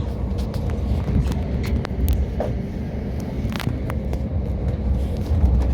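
Interior running noise of a Class 377 electric multiple-unit train in motion: a steady low rumble with scattered clicks and rattles.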